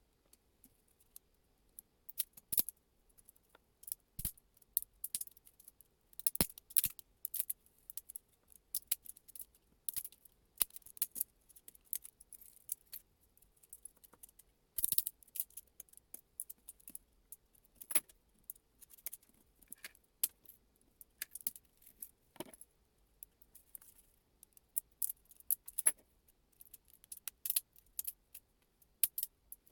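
Small hard 3D-printed plastic parts clicking and clattering against each other and the bench as they are handled, in quick irregular clicks with a few louder knocks.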